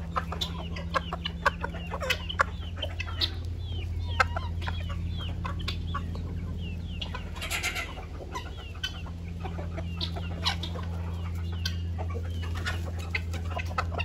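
A mixed poultry flock clucking, with high, short chick peeps scattered throughout.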